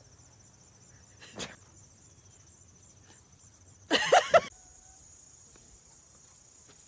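Crickets chirring steadily in high, even pulses, with a woman's short burst of laughter about four seconds in.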